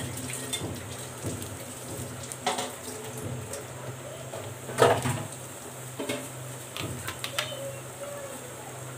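Hot oil bubbling and crackling in an empty karai, with scattered sharp pops or clicks, the loudest about five seconds in.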